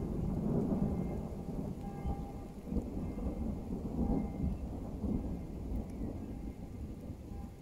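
Rolling thunder rumbling low, swelling in several waves and easing off near the end, with rain falling.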